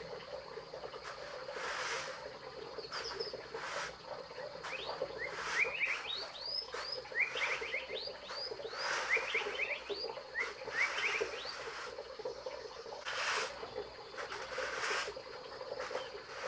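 Rural outdoor animal chorus: a steady buzzing of frogs and insects underneath, and a quick run of short rising chirps in the middle. Brief swishes of a straw broom on the ground come now and then.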